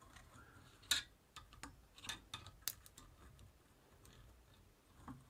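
A handful of faint, irregular metallic clicks as small loose bearing balls are picked out of a greasy bicycle bottom bracket cup with a magnetic pick-up tool, the sharpest about a second in.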